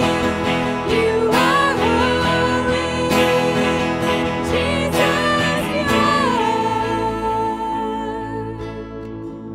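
Worship song sung by two women with electric guitar and keyboard. About six seconds in the singing settles on one long held note and the music fades out.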